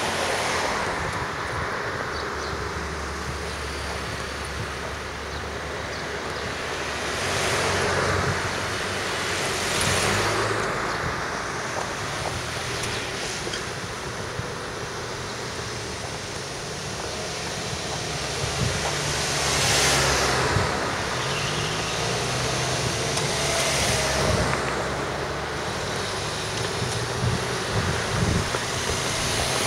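Road traffic: several vehicles pass one after another, each a rising and fading rush, over a steady bed of wind noise on the microphone.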